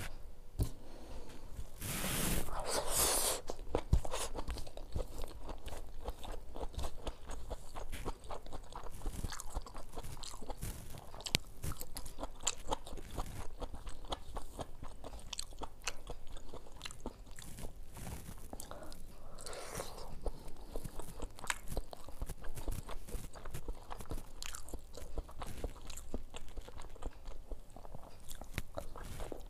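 Close-miked chewing and crunching of a meal of cauliflower fry, rice and boiled egg eaten by hand, with wet mouth clicks and smacks throughout. Louder crunching comes about two seconds in and again around twenty seconds.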